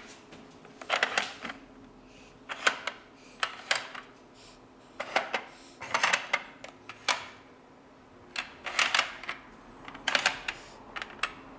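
Plastic car pieces of a sliding-block traffic-jam puzzle sliding and clacking against each other and the plastic tray, in short clusters of clicks about every second, with brief pauses between moves.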